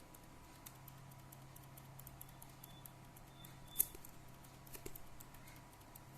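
Light, scattered clicks and taps of hands handling a laptop and its small parts, with one sharper click just before the middle and a few more about a second later, over a faint steady hum.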